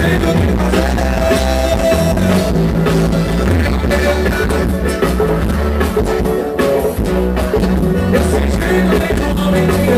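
Live band music played loud over a stage PA: singing over a heavy bass line with a steady beat.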